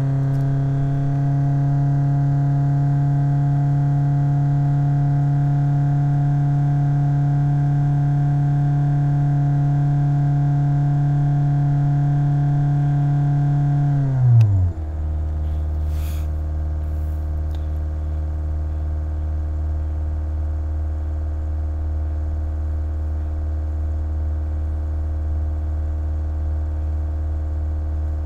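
Volkswagen Golf IV 1.9 TDI four-cylinder turbodiesel held steady at raised revs for about fourteen seconds, then dropping quickly back to a steady idle. The engine is warm and being run for a combustion-leak test of the cooling system, with the owner suspecting the head gasket.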